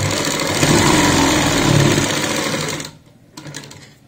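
Domestic sewing machine running, stitching through the layered fabric for about three seconds and then stopping suddenly, with a few faint clicks afterwards.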